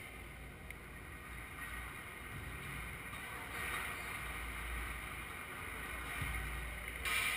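Steady low rumble and hiss of background noise in a large, echoing hall. It swells around the middle and again briefly near the end.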